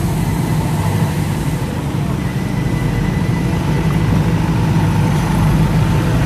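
Engine of a parked Mitsubishi van idling with a steady low hum, growing slowly louder as it is approached.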